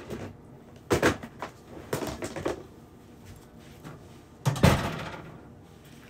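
A room door being shut: a few knocks and bumps, then the loudest thump about four and a half seconds in as it closes.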